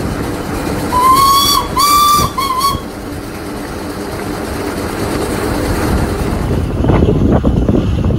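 Steam traction engine's whistle blown in two longer blasts and then two quick toots, over the engine's steady running and the rumble of the road. Near the end this gives way to wind buffeting the microphone.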